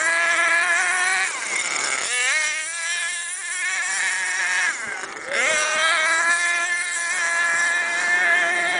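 HPI Savage 25 RC monster truck's small nitro two-stroke engine running at high revs with a high-pitched whine, the pitch falling as the throttle comes off about two seconds in and again about five seconds in, then climbing back as it accelerates.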